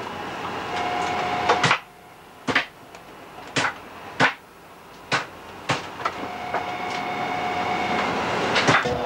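Irregular sharp knocks of a knife against a wooden cutting board, about nine of them, some in quick pairs. Beneath them a steady machinery hum with faint held tones grows slowly louder.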